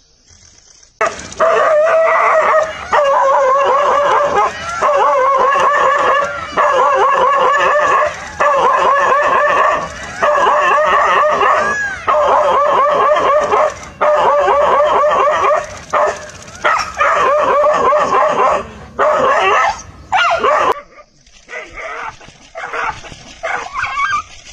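A dog crying out in distress: loud, drawn-out, wavering yelps about a second long, repeated with short pauses, which give way to fainter, choppier cries near the end.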